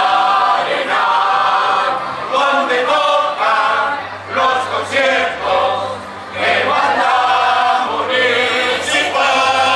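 A choir singing a song together in long held phrases, with brief dips between phrases.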